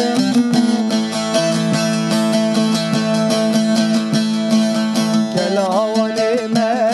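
Background music: a Kurdish song with a plucked string instrument playing a steady rhythm, and a wavering sung melody coming in about five seconds in.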